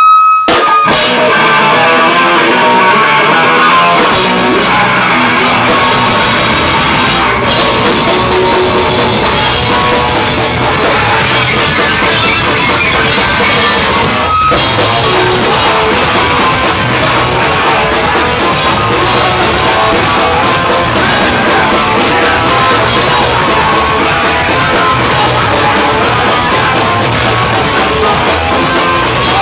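Live rock band playing loud: electric guitar and drum kit, kicking into a song about half a second in.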